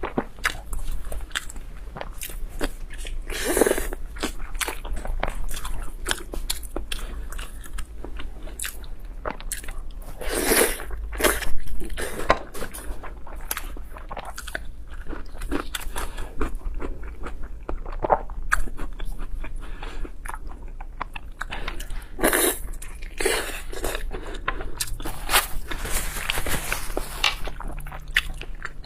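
Close-miked ASMR eating: a person biting and chewing crunchy food, with a constant run of crisp crunches and several louder bites along the way.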